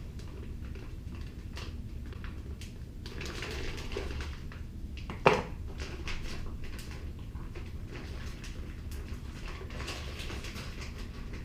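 Small clicks and taps of parts being handled on a workbench, with one sharp knock about five seconds in, over a steady low hum.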